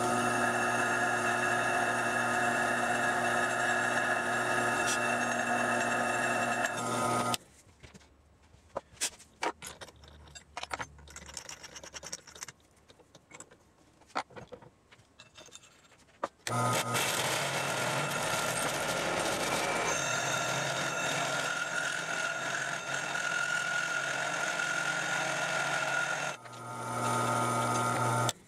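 Drill press motor running steadily while a thin bit drills a centring hole in steel plate. It stops about seven seconds in, giving way to scattered clicks and knocks as the chuck is changed over to a 1-inch metal-cutting hole saw. The press then runs again, cutting with the hole saw, and cuts out briefly near the end.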